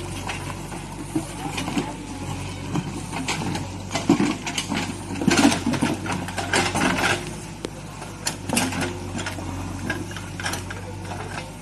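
JCB 3DX backhoe loader's diesel engine running steadily while its backhoe bucket digs into soil, with irregular knocks and scrapes as the bucket works.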